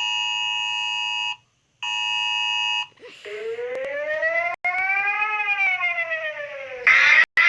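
Emergency alert sounds played back one after another: a steady two-note alert tone sounds twice, about a second each, like the EAS attention signal. Then a siren wails, rising and falling once over about four seconds. Near the end a louder, harsher siren starts.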